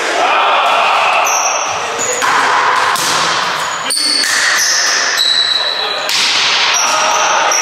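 Indoor volleyball game: voices and calls in a hall, several short high squeaks, and one sharp hit about four seconds in.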